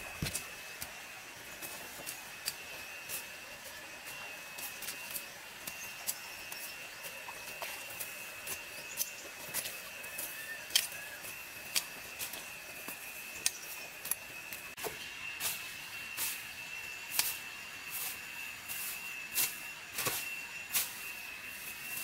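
A knife cutting and hacking through weeds and grass at ground level, a string of short, irregular snaps and rustles about one to two a second, with a steady high tone behind.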